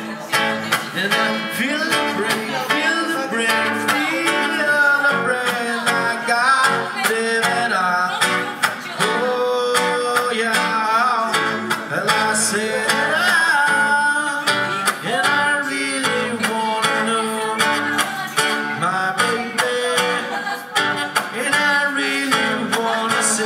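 Background music: an acoustic guitar strummed with a singing voice over it.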